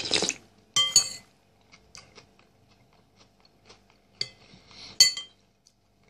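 Metal spoon clinking against the soup bowl twice, about a second in and again near the end, each clink ringing briefly. It opens with a slurp of soup from the spoon, and the spoon scrapes in the bowl just before the second clink.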